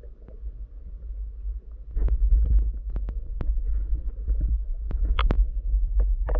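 Underwater sound picked up by a camera in its housing: a steady low rumble of water moving past, with scattered sharp clicks and ticks. The rumble grows louder about two seconds in, and a loud knock with a short ringing tone comes right at the end.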